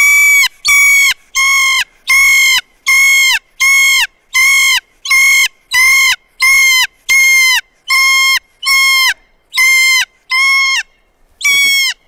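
Kea calling loudly and repeatedly: a run of about fifteen short, evenly spaced calls, roughly three every two seconds, each dropping in pitch at its end, with a brief pause before one last call near the end.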